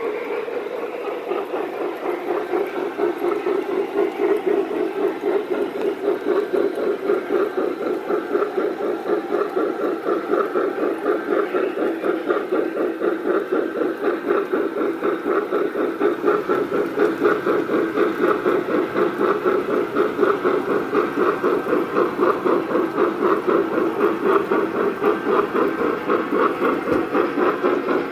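Lionel Rio Grande 4-6-6-4 Challenger O-gauge model steam locomotive running under load, its onboard sound system giving a rhythmic steam chuff over the rolling noise of the train on three-rail track. It grows louder over the first few seconds as the engine comes close.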